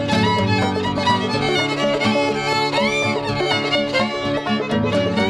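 Instrumental music led by a violin, with a steady beat underneath and a sliding, wavering high note about three seconds in.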